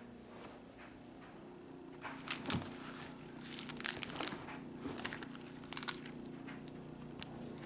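Crinkling and rustling of crinkly material being handled, in irregular bursts starting about two seconds in and thinning out near the end, over a faint steady hum.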